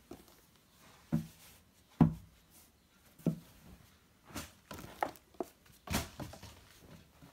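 Handling noise as T-shirts are moved about on a table: scattered soft knocks and rustles, the loudest about two seconds in and another near six seconds.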